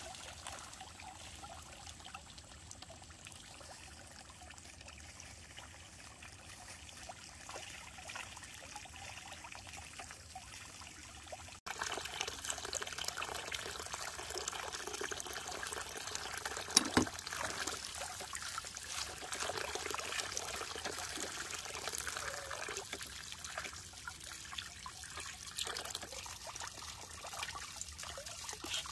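Water running, pouring and trickling steadily. It gets abruptly louder about twelve seconds in, with a sharp knock a few seconds later.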